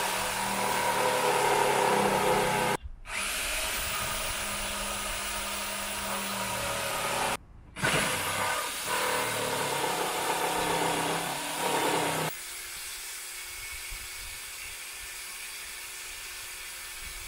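Corded jigsaw cutting through a wooden shelf board to make a notch. The saw sound breaks off abruptly twice and comes straight back. After about twelve seconds it gives way to a quieter steady hum.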